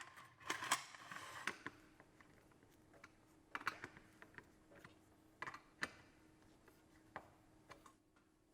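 Light, irregular metal clicks and taps from aluminium frame profiles and corner pieces being fitted together and fastened with screws, about a dozen sparse strokes with a faint hum underneath.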